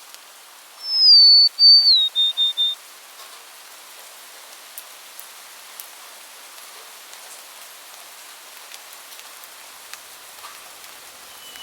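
A songbird whistles one short phrase of clear notes, stepping down in pitch and ending in three quick repeated notes, over a steady rain-like hiss.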